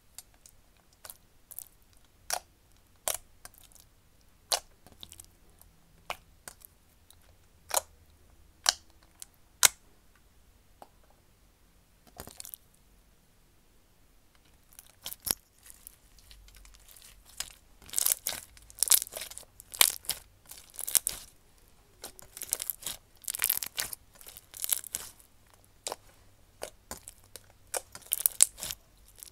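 Clear slime with block beads being squished and pressed by hand: sharp, separate pops and clicks over the first half, then a dense run of crackling and crunching over the last dozen seconds.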